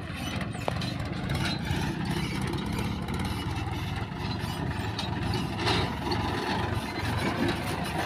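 Mahindra Trakstar 540 tractor's diesel engine running steadily as it pulls a trolley loaded with mud across a field, coming closer.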